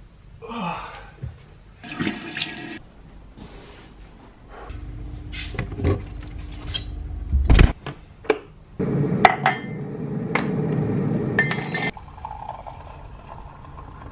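Clicks and knocks of things being handled, with a heavy thump about halfway, then about three seconds of running water that cuts off suddenly.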